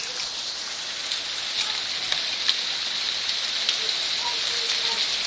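Hail and rain falling together: a steady hiss of heavy rain with scattered sharp ticks of hailstones striking.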